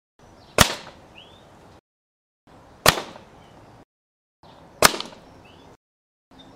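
Three shots from a .177 Hatsan AT44-10 PCP air rifle, about two seconds apart, each a sharp crack with a short fading tail. The shots are separated by dead silence.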